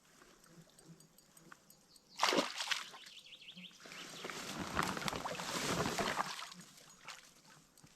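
Oars splashing and sloshing through lake water as a small rowboat is rowed, with a sharp splash about two seconds in and a longer swell of sloshing a couple of seconds later.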